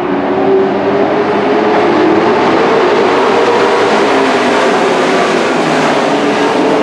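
Engines of a pack of dirt-track race trucks running hard as they lap and pass by, a loud steady engine sound with a wavering pitch.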